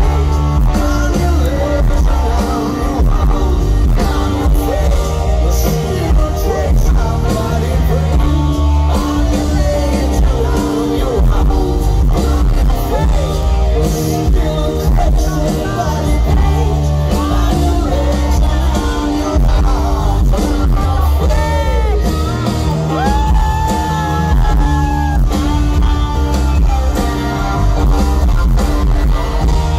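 A live rock band plays the extended outro of a song through a festival PA: electric guitars, bass, drums and keyboards with singing. It is heard from inside the crowd, with a heavy, boomy low end.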